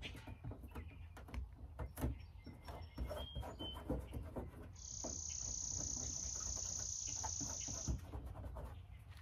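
An insect buzzes as a steady high hiss for about three seconds, starting just before the middle and cutting off near the end. Under it, fingers rub and roll leftover black badge adhesive off a truck's painted door with soft scuffs and small clicks.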